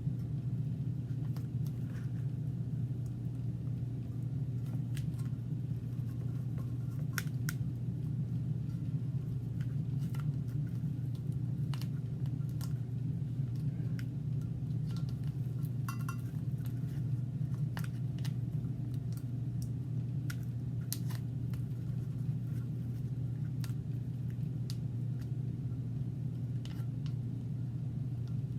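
A steady low hum, with faint small clicks and taps scattered over it.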